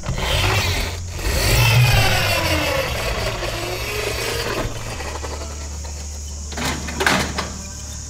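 Recorded truck engine sound, revving with a wavering pitch for the first few seconds, then settling into a steady low idle about five seconds in, with two short knocks near the end.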